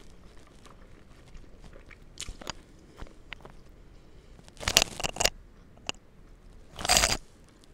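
Close-miked chewing of a mouthful of food, with small wet mouth clicks. Two short, louder rushing noises come about five and seven seconds in.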